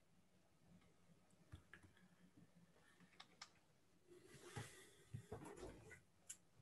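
Near silence on an open call line, with a few sharp faint clicks and a brief faint rustle about four to six seconds in.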